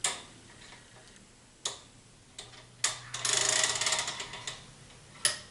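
Light metal clicks and a short, fast rattle of metal on metal as a magnet pickup rod is worked down inside a motorcycle fork tube to catch the damper piston rod. Scattered single clicks, with the rattle about three seconds in.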